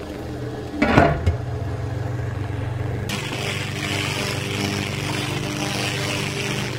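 Glass lid set down on a steaming wok with a ringing clink about a second in, over a steady low hum from the kitchen. About three seconds in, a steady hiss joins the hum.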